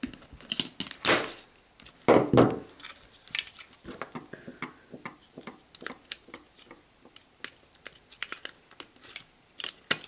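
Small hand tools working on a plastic telephone socket: two louder snips or scrapes about one and two seconds in, as side cutters trim the wire and cable-tie ends, then a run of small irregular clicks and scratches as a small tool presses at the wire terminals.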